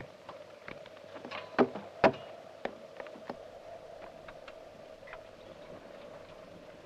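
Scattered sharp clicks and knocks, the two loudest close together about two seconds in, over a faint steady hum.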